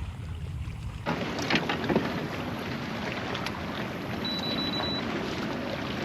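Wind and water noise around a fishing kayak on open water, with a few sharp knocks about a second and a half in. A short, steady high-pitched beep sounds a little after the middle.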